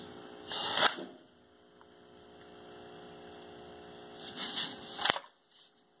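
Faint steady electrical hum, with two brief rustles, one in the first second and one around four to five seconds in, and a sharp click about five seconds in.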